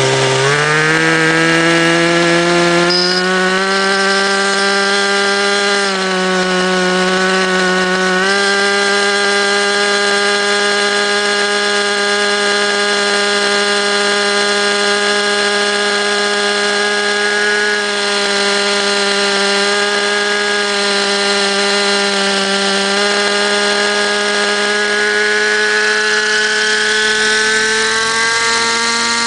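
Model helicopter's motor and rotor spooling up with a rising whine over the first few seconds, then running at a steady high-pitched whine in flight, the pitch shifting slightly now and then.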